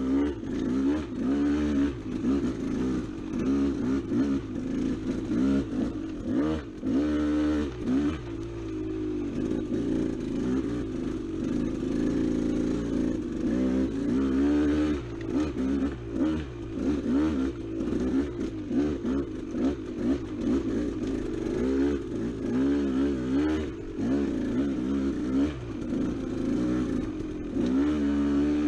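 Dirt bike engine running under a rider's throttle, the revs rising and falling over and over, with some clatter from the bike.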